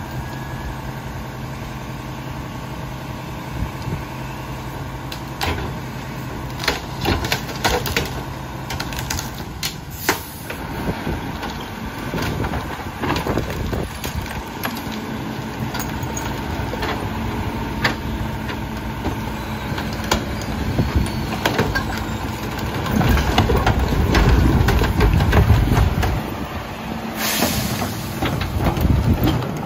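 Chagnon rear-loader garbage truck idling steadily while trash carts are banged against the hopper and trash is dumped in, with many sharp knocks and clatters. Near the end the low engine rumble grows louder and heavier for a few seconds as the truck works, likely the packer cycling.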